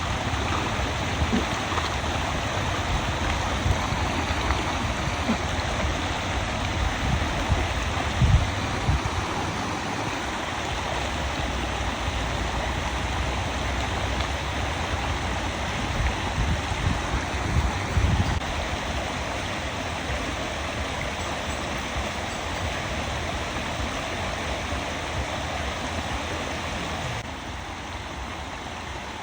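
Stream water flowing, a steady rushing sound, with a few short low thumps about eight seconds in and again about eighteen seconds in.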